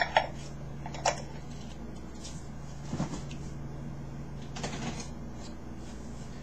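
Butter and minced garlic sizzling softly in a frying pan over a steady low hum, with a few short sharp clicks and light knocks: one near the start, one about a second in, and more around three and five seconds in.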